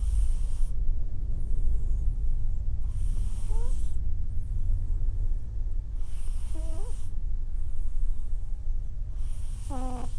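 A soundly sleeping cat snoring, with a breath about every three seconds over a steady low rumble. Several of the breaths end in a short squeaky note.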